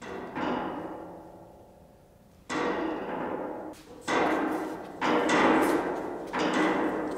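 Steel storage-rack beams being set down one on another on a stack: five metallic clanks, each ringing and fading over about a second.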